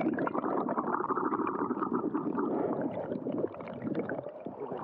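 Muffled gurgling and bubbling of river current, heard with the microphone underwater. It eases a little about three and a half seconds in.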